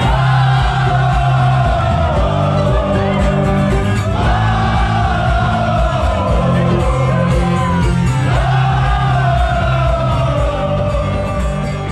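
Band music: a singer holds three long phrases, each starting about four seconds after the last and sliding slowly down, over steady bass notes.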